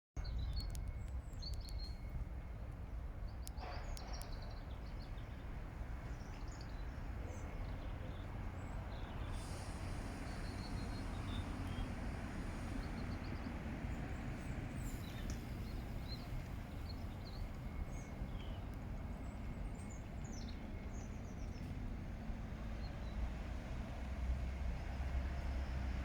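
Scattered short, high chirps of small birds over a steady low rumble of distant city traffic.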